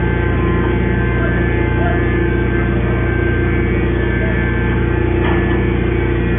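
Hydraulic metal baler running: a steady, loud electric-motor and pump hum made of many unchanging tones over a strong low drone.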